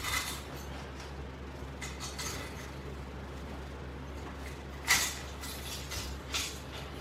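A few light clicks and clinks, with one sharper click about five seconds in, over a steady low hum.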